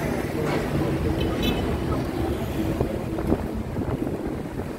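Hong Kong double-decker tram running along its tracks: a steady rumble with wind buffeting the microphone, and a brief high-pitched tone about a second and a half in.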